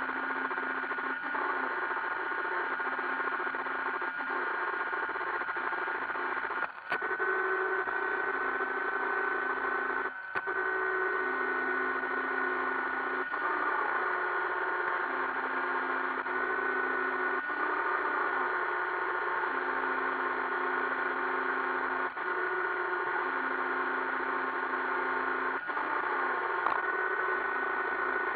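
iRobot Roomba 560 robot vacuum running: a steady whir of its motors and brushes with a high steady tone, and a lower hum that switches on and off every few seconds. Several short knocks a few seconds apart break into it.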